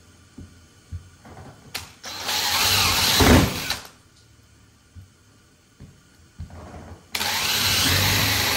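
Cordless drill boring starter holes through a Honda Civic coupe's sheet-metal trunk lid: two bursts of drilling about two seconds each, the first starting near two seconds in, the second about seven seconds in, each loudest near its end.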